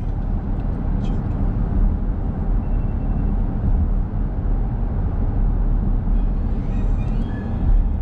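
Steady low rumble of a car driving at road speed, heard from inside the cabin: tyre and engine noise on a paved road.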